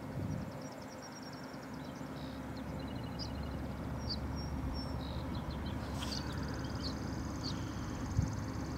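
Songbirds singing: rapid high trills and short chirps, over a steady low rumble. A single sharp knock near the end.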